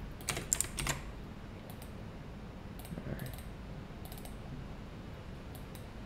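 Computer keyboard typing: a quick run of keystrokes in the first second, then a few scattered single keystrokes.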